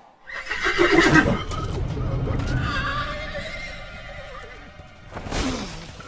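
Horse whinny used as a centaur sound effect. It comes in suddenly and loud about half a second in, then trails off over the next few seconds, with a second, shorter burst near the end.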